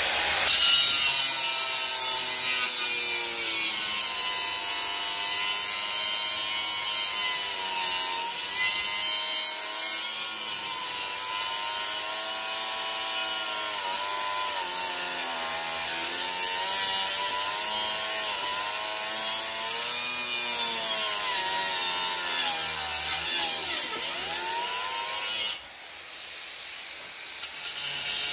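Angle grinder with a small cut-off blade cutting into the metal shell of a small compressor. The motor's whine dips and recovers as the blade is loaded, over a constant grinding hiss. It stops suddenly near the end, then starts again just before the end.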